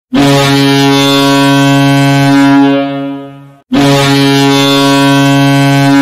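Kahlenberg KM-135 marine air horn used as an ice hockey goal horn, sounding two long, loud, deep blasts: the first holds steady for about two and a half seconds and then dies away, and the second starts right after it, a little past halfway.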